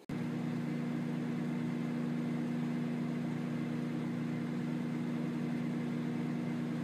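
A motor running with a steady, even hum that cuts in suddenly.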